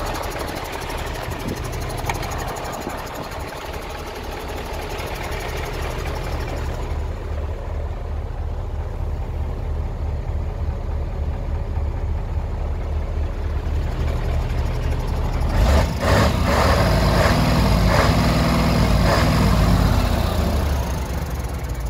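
Mercedes-Benz 1628 truck's V8 diesel engine idling with a steady low, even beat. It is muffled for several seconds midway, heard from inside the cab, and louder and rougher for the last few seconds.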